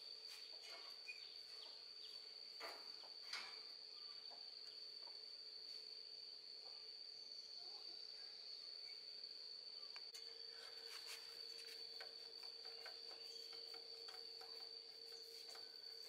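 Near silence with a faint steady high-pitched tone, and a couple of faint clicks a few seconds in as gloved hands work at the plastic fan hub of an air conditioner's outdoor unit.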